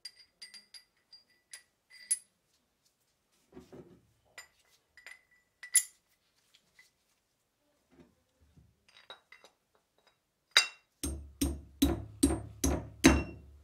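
Small steel parts, a washer and a bracket, clinking and ringing as they are slid onto a steel shaft. Near the end comes a run of seven hammer blows, about two and a half a second, tapping a gear onto the shaft.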